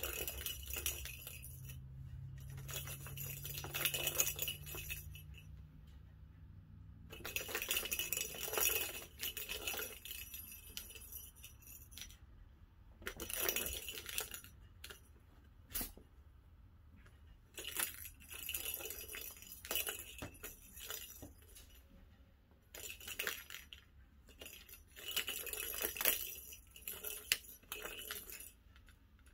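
Plastic balls rattling and rolling around the tracks of a three-tier cat track toy as a cat bats at them, in bursts of a second or two with pauses between.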